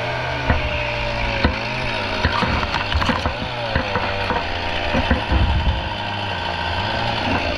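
Chainsaw idling steadily, with scattered knocks and thuds as the freshly cut palm trunk rounds are handled.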